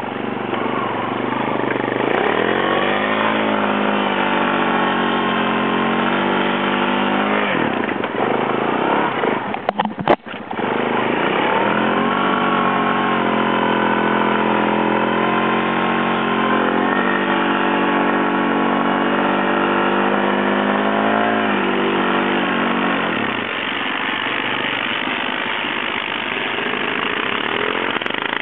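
ATV engine revving up and running steadily at higher speed, easing off after about seven seconds, then revving up again for a longer run before dropping back to a lower steady speed near the end. A brief sharp knock comes between the two runs.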